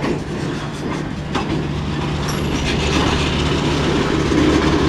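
Freight train's steel gondola cars rolling past close by: a steady rumble of wheels on rails, with a few sharp clicks of the wheels over the track.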